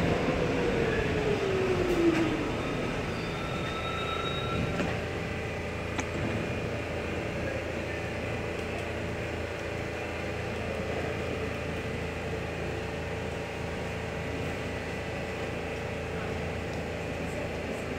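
New York City subway Q train braking to a stop at a station platform, its motor whine falling in pitch over the first two seconds. A brief high squeal follows a few seconds in, then the standing train gives a steady hum.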